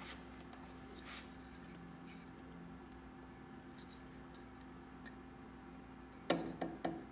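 Light clicks and clacks of a finned aluminium oil filter cover and its parts being handled beside a motorcycle engine, with a quick cluster of about three sharper knocks near the end.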